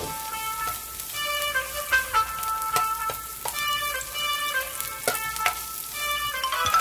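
Cocktail sausages and minced garlic sizzling in hot oil in a nonstick frying pan, with a spatula stirring and scraping them around the pan.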